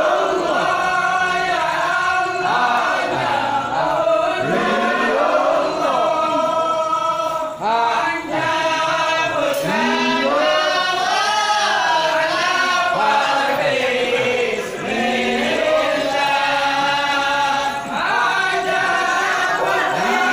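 A group of men chanting sholawat together for the samman dance, a melodic unison chant that rises and falls without pause.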